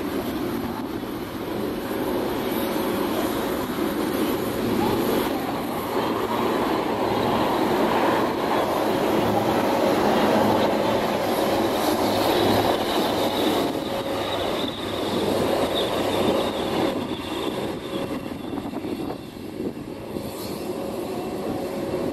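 A formation of four display helicopters flying overhead, their rotor and engine noise a continuous rumble that swells to its loudest around the middle and eases off toward the end.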